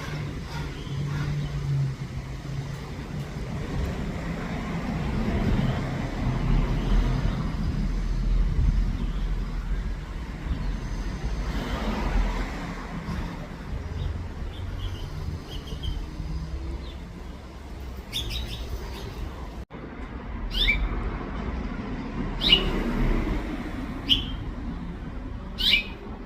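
House finches giving short, sharp chirp calls, about five of them in the last third, each falling quickly in pitch, over a steady low rumble.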